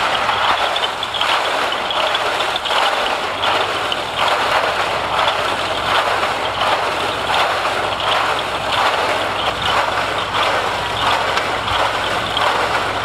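Ice-pop machine running: a stainless tub of metal moulds with wooden sticks spinning, a loud, steady mechanical churning rattle with repeated knocks.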